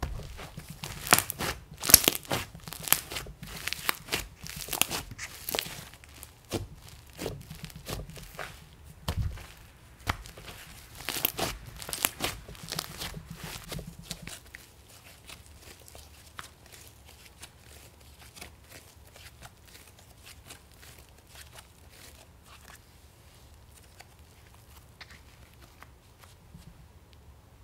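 Thick pale yellow slime being stretched and pulled apart by hand, giving a dense run of sticky crackling and tearing pops. The pops thin out to a few faint clicks about halfway through.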